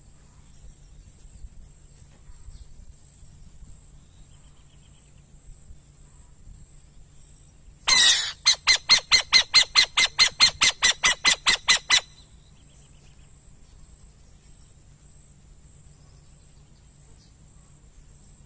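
A bird calling: about eight seconds in, a harsh screech, then a fast run of about sixteen loud squawking notes, roughly four a second, lasting about four seconds. A faint steady high-pitched tone and a few soft chirps run underneath.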